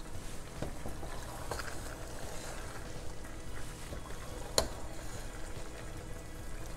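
Rigatoni being stirred through a thick cheese sauce with a spoon: wet squelching and soft scrapes against the pan, with one sharp knock about four and a half seconds in.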